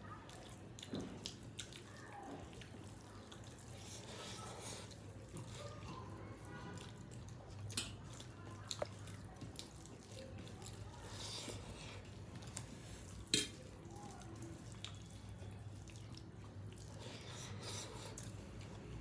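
Quiet, wet eating sounds, chewing and mouth smacks, with scattered sharp clicks; the loudest click comes about thirteen seconds in.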